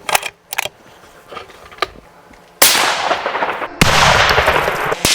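A 6.5 mm rifle fires about two and a half seconds in, a sharp crack with a long rolling echo. About a second later comes a second loud bang that carries on into a long rumble. The Tannerite target is not set off.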